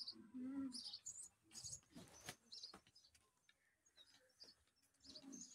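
Faint, repeated chirping of small birds, with a brief rustle about two seconds in.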